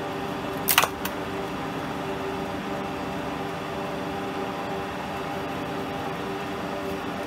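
Schaublin 52 milling machine running steadily with its spindle turning, a steady hum made of several even tones from the motor and gearing. A sharp clack about a second in, with a smaller one just after.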